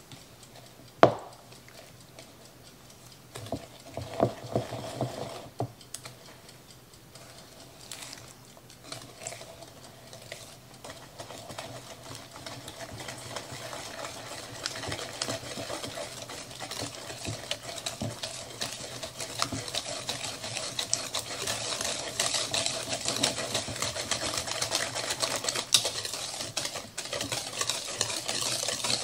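Wire whisk beating a thick egg, honey and butter mixture in a plastic bowl: fast, steady clicking that grows louder through the second half. A sharp knock about a second in.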